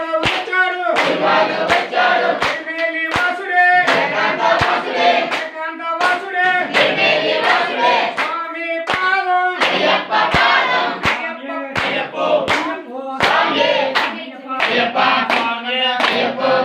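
A group of voices singing a devotional bhajan in chorus, with hand claps keeping a steady beat.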